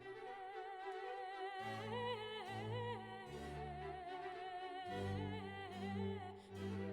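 Background music: a classical operatic voice holding long notes with vibrato over slow, sustained low notes.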